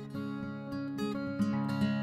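Background music led by strummed acoustic guitar, with notes changing in a steady rhythm.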